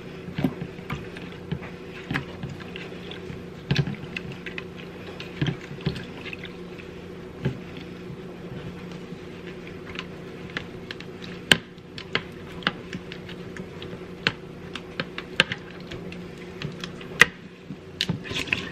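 A makeup brush being scrubbed clean, giving irregular small clicks and taps over a steady low hum.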